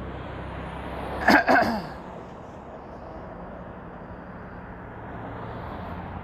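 A man's short non-speech vocal burst, two quick sharp pulses about a second in, over a steady outdoor background hiss.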